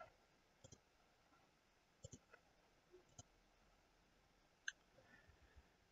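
Near silence with a few faint, scattered computer mouse clicks; the clearest comes near the end.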